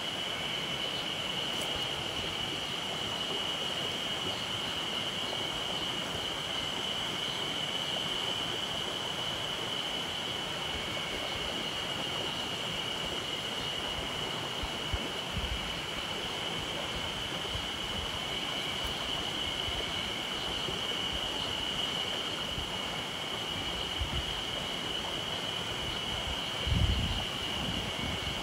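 Mountain stream running over rocks and small cascades, a steady rushing noise, with a steady high-pitched drone over it. A few soft low thumps come near the end.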